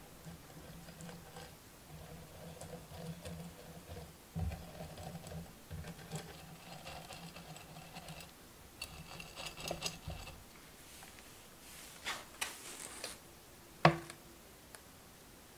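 A silicone pastry brush dabs and rubs oil onto the nonstick plates of a Recolte Smile Baker doughnut maker in soft, irregular strokes, which stop after about ten seconds. Near the end comes a short rustle, then a single sharp tap, the loudest sound.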